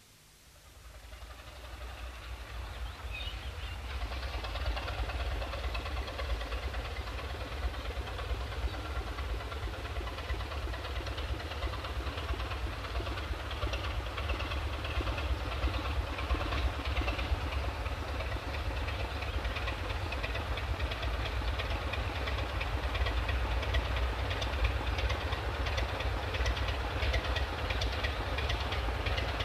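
Sulzer-engined British Rail diesel locomotive running, its deep engine rumble building up over the first few seconds and then holding steady, heard from an old cassette recording.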